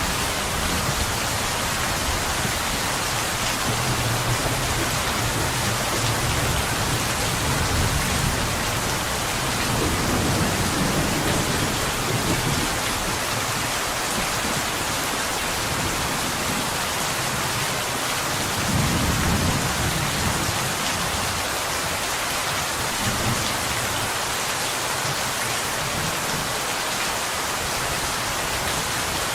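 Steady rain falling against window glass as an even hiss of drops. Low rumbles swell up a few times, around four, ten and nineteen seconds in.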